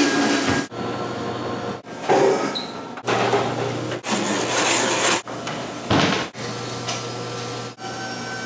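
Kitchen work sounds in short cut-together clips: a knife chopping and scraping on a wooden cutting board, over a steady low hum, with abrupt breaks between clips.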